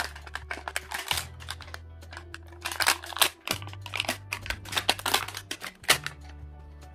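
Plastic wrapping of an LOL Surprise toy ball crinkling and tearing in a quick run of sharp crackles as its layers are peeled off by hand, over background music with a steady bass line.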